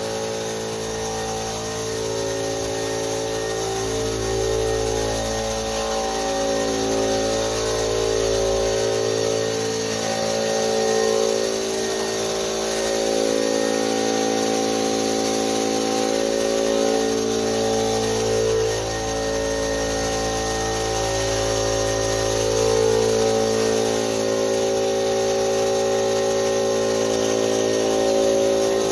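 Background music of long held chords and slow-changing bass notes, over a steady hiss.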